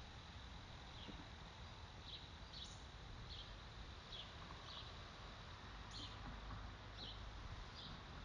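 Faint outdoor nature ambience: a steady hiss with short, high chirps from small birds, one every half second to a second.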